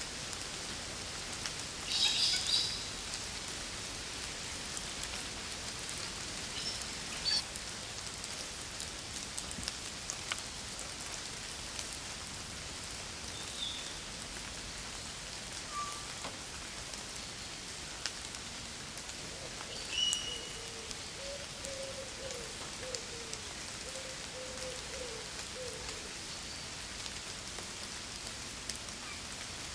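Steady rain falling on the ground and leaf litter, an even patter throughout, with a few brief high sounds over it, the loudest about two seconds in.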